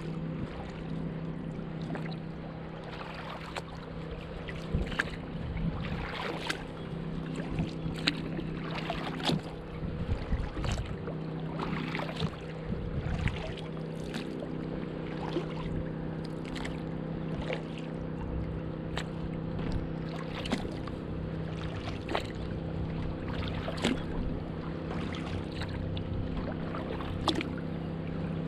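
Kayak paddle strokes in calm water: the blades dip and drip with small splashes about once a second, over a steady low hum.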